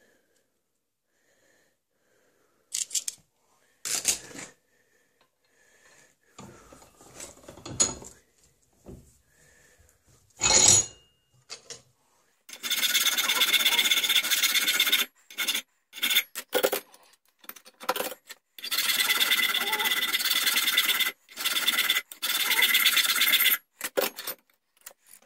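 Hand file cutting a round metal rod clamped in a bench vise, in two long runs of fast back-and-forth strokes, after several knocks and clatters of tools being handled. It is the rod being filed down for a wheellock's spanning shaft.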